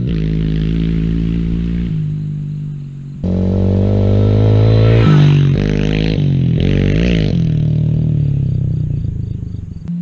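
Yamaha TTR110 pit bike's small single-cylinder four-stroke engine running as it is ridden, revving up and down several times between about five and seven and a half seconds in, with sudden jumps in pitch where one riding clip gives way to the next.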